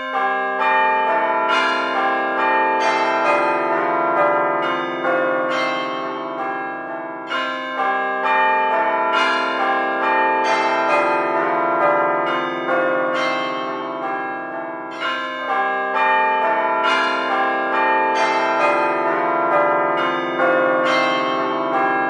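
A peal of bells rings continuously, struck one after another in quick succession with their long ringing tones overlapping. The sequence repeats about every seven and a half seconds.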